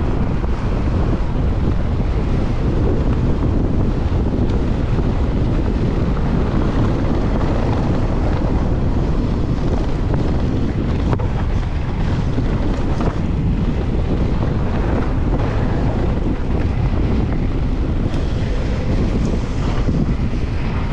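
Wind rushing over the microphone of a camera riding along on a mountain bike at speed: a loud, steady noise with a few faint knocks from the bike on the trail.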